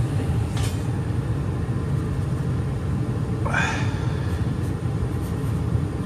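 Steady low rumble of a running gas furnace and its blower fan, with a short high sliding sound about three and a half seconds in.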